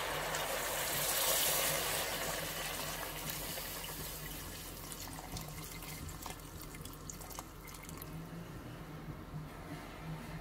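Lamb broth poured into a stainless steel pot of artichokes and meat, a steady splashing pour that is loudest about a second in and then slowly tails off.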